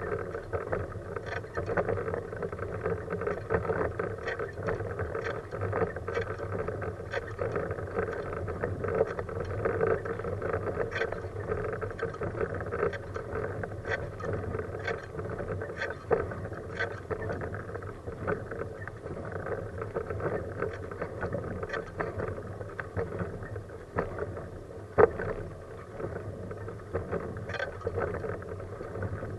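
Manual wheelchair with a Freewheel front-wheel attachment rolling on an asphalt road: a steady rolling noise from the tyres, with frequent small clicks and rattles from the chair and its mount, and one louder knock a few seconds before the end.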